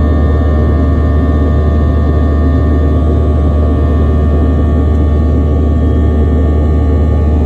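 Passenger plane cabin noise in flight: a loud, steady low drone from the engines, with a few faint steady tones above it.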